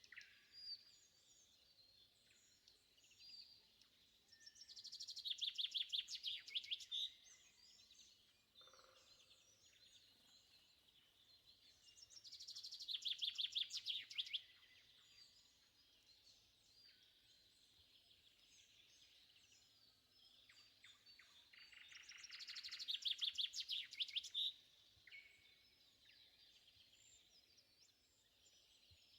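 Dawn chorus of songbirds, among them a shrike and a nightingale. One bird sings a loud phrase of fast repeated notes three times, about eight seconds apart, over many fainter chirps and whistles from other birds.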